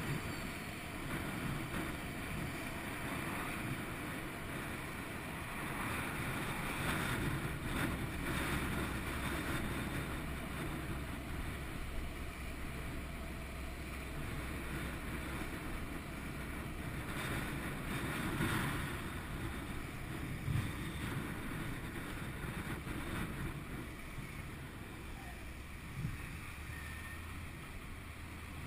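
Wind buffeting a helmet-mounted camera's microphone while riding a 2011 Honda VFR800 VTEC motorcycle, with the V4 engine's steady low drone underneath. The wind noise swells a few times and eases slightly near the end.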